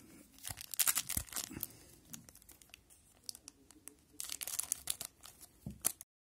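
Foil wrapper of a 2001-02 Pacific Adrenaline hockey card pack being torn open and crinkled by hand: a crackly burst about half a second in and another about four seconds in. The sound cuts off suddenly just before the end.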